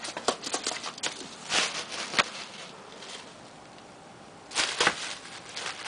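Bubble wrap crinkling and crackling under a ferret's scrabbling paws, in short bursts of quick clicks: several in the first two seconds, a lull, then another burst near the end.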